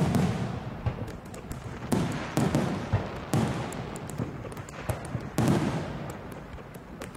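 Aerial fireworks going off: about five deep booms, each rumbling away over a second or so, with sharp crackling pops scattered between them.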